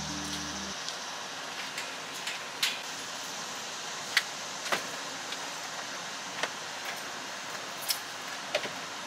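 A storage-closet door being shut and locked with a set of keys: about half a dozen sharp clicks and key jingles spread over several seconds, over a steady outdoor background hiss. Low background music cuts off about a second in.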